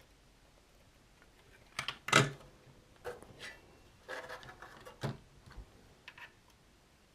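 A few sharp clicks and knocks of hand work on a circuit board with a desoldering iron, the loudest about two seconds in and a short cluster a little after the middle.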